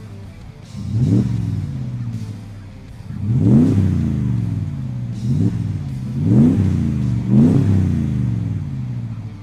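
2019 Ram 1500's 5.7L HEMI V8 revved about five times through a MagnaFlow cat-back exhaust with a stainless straight-through muffler. Each rev rises quickly in pitch and falls back.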